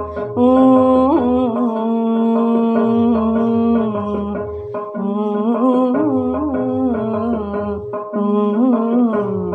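A woman singing a Kannada devotional dasa song without words, holding long notes with wavering, ornamented slides between them. A low, evenly repeating rhythmic accompaniment runs beneath the voice.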